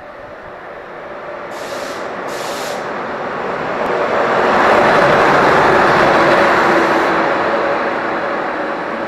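Electric locomotive and its passenger coaches running past along the platform, the rolling noise building to its loudest about five seconds in and then easing off, with a steady whine underneath. Two short hisses about two seconds in.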